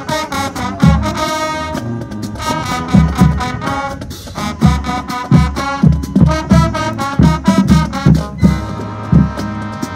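Marching band playing live: brass horns holding loud chords over repeated bass drum hits.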